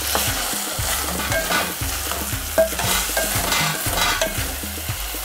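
Matumbo (tripe) and green peppers frying and sizzling in a pot, with short scrapes and knocks in the pot.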